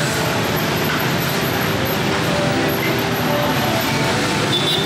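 Steady roadside background noise at a street-food stall, mostly traffic running by.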